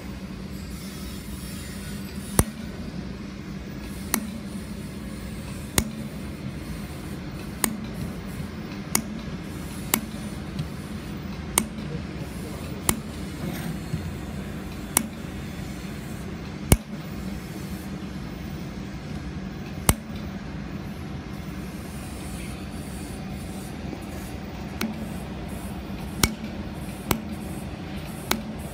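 Handheld fiber laser welder firing single spot-weld pulses, each a short sharp snap, about fifteen in all at uneven intervals of one to three seconds, over a steady machine hum.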